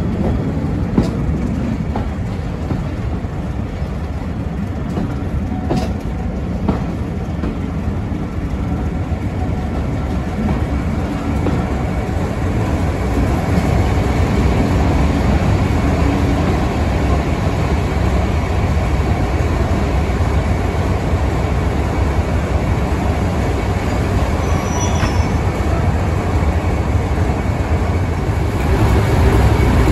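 Heritage passenger train hauled by a Class 31 diesel locomotive running along the line, heard from on board: a steady rumble of wheels on rail with a few faint clicks, growing louder about halfway through.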